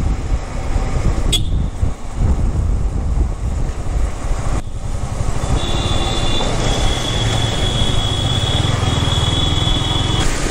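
Motorcycle riding through city traffic, heard from a helmet-mounted microphone: wind rush and the Yamaha R15 V3's single-cylinder engine running at road speed, with other traffic around. A sharp click sounds about a second in, and a thin high steady tone comes in about halfway and runs for several seconds.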